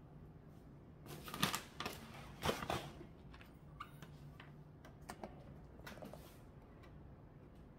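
A plastic bag of white potting grit being handled: crinkling plastic and small grains clattering in quick clusters of clicks, loudest from about one to three seconds in, with a few lighter clicks later. A faint low hum runs underneath.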